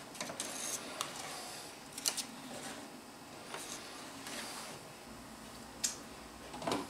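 Plastic spatula spreading thick cake batter in a metal cake pan: soft scraping and squishing strokes with a few light clicks as the spatula touches the pan's rim.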